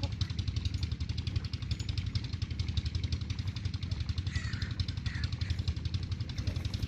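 An engine running steadily with a rapid, even pulse, its sound mostly low. A few short, faint chirps sound over it about four to five seconds in.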